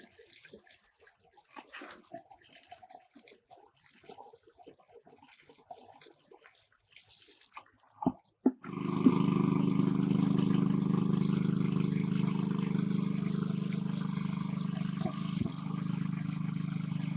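Faint scattered ticks and rustles with a thin high steady tone, then after a knock a loud, steady motor-like drone starts abruptly about halfway through and holds an even pitch.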